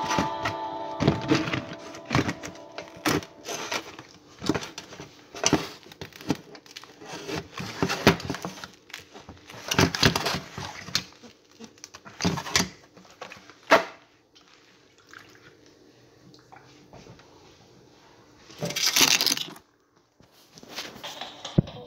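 A song's last notes end about a second in. Then comes irregular rustling, scraping and sharp knocks close to a phone's microphone as the phone is handled. After a quieter stretch there is one short loud rush of noise near the end.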